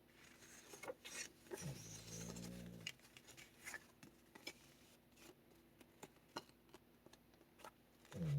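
A dog snoring: one low, drawn-out snore about two seconds in and another starting right at the end. Soft paper rustles and ticks from journal pages being handled run between them.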